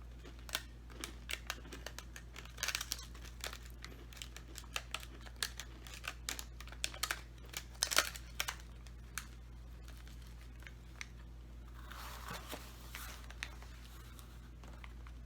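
Irregular sharp crinkles and crunches for most of the first nine seconds, then a short rustle about twelve seconds in: a granola bar's plastic wrapper being handled while the hard, dry coconut dark chocolate granola bar is bitten and chewed.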